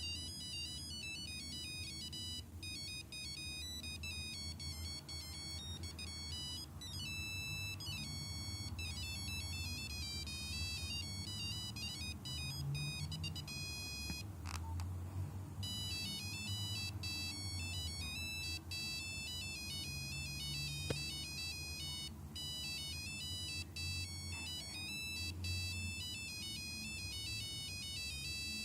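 Nokia 5125 mobile phone playing its ringtones, a fast melody of single high beeping notes. About halfway through the melody breaks off for about a second with a click, then another tune starts. A steady low hum runs underneath.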